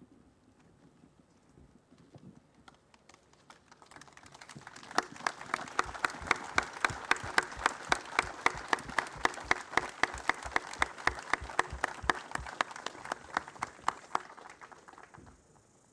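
Crowd applauding, building up about four seconds in and dying away near the end. Sharp, evenly spaced claps, about four a second, stand out above the rest.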